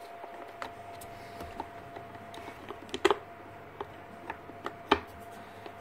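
Clicks and knocks of a Bosch GHS 11 E demolition hammer's housing being handled and shifted on a bench, with two louder knocks about three and five seconds in. A faint steady hum runs underneath.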